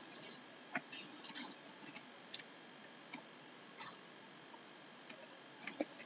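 Faint, irregular clicks and light taps of a stylus writing on a pen tablet.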